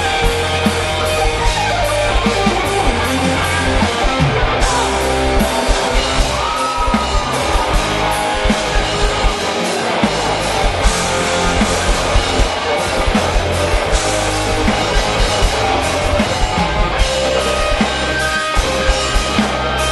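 Rock band playing live, with electric guitars, bass guitar and drums going steadily together.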